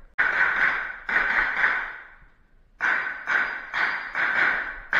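A string of about eight pistol shots from a CZ P-10 C, fired in quick pairs and singles, each cracking sharply and fading quickly, with a short pause about two seconds in before the shooting resumes.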